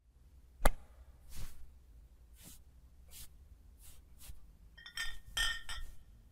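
Sound effects for an animated character: a sharp click about half a second in, then several soft, separate swishes, and near the end a quick run of light clinks with a ringing tone.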